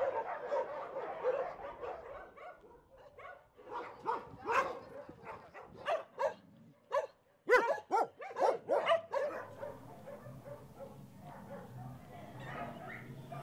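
Several shelter dogs barking, the calls overlapping at first, then a run of loud, separate barks between about four and nine seconds in, then dying down to fainter barking.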